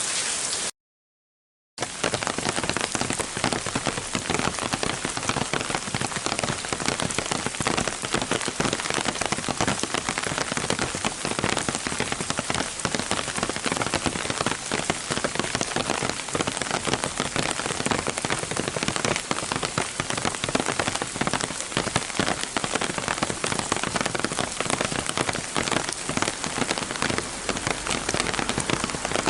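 Rain falling on an umbrella held overhead: a dense, steady patter of drops striking the canopy. It starts about two seconds in, after a second of silence that cuts off a moment of moderate rain.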